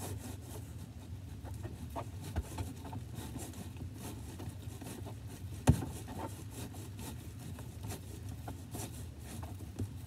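A spoon stirring sticky glue slime that has just been activated with contact solution, in a plastic tub: soft, irregular scraping and small clicks, with one sharper knock a little past halfway. A steady low hum runs underneath.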